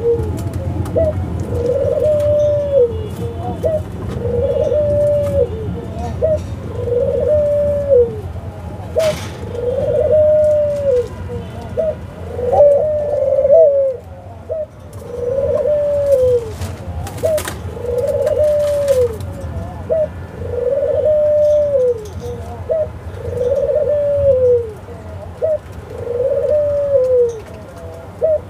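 A caged white domestic dove cooing over and over, about one arching coo every two seconds, each rising and then falling away. This is the bowing coo display of a male dove. A few sharp clicks are also heard.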